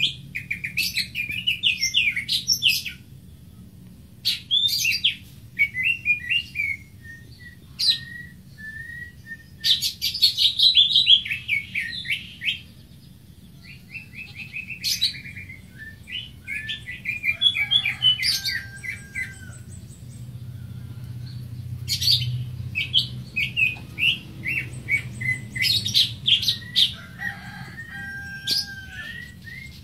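Greater green leafbird singing: bouts of rapid, varied chirps and trills a few seconds long, with short pauses between them, over a steady low hum.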